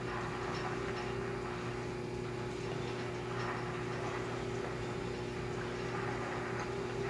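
A steady low hum with constant tones, and faint scattered ticks over it.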